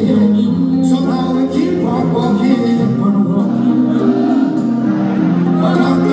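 Live reggae band playing, with a lead voice singing over it.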